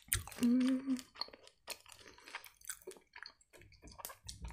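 Close-miked wet mouth clicks and smacks of chewing and swallowing, with a short hummed "mmm" about half a second in. Sips from a plastic water bottle near the end.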